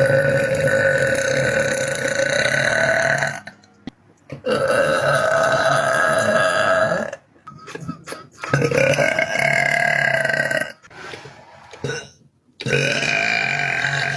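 A woman burping: four long, loud, drawn-out burps in a row, each lasting two to three seconds, with short pauses between them.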